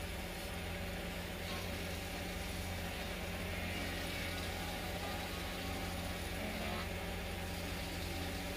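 Wood lathe running steadily, its motor giving a low hum under an even hiss.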